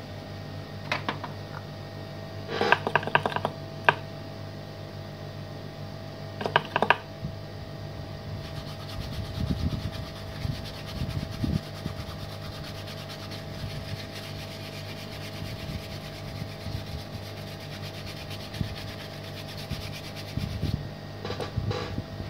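A steady mechanical hum, with clusters of sharp clicks and light scraping and rubbing as a small hand tool works on a circuit board's surface.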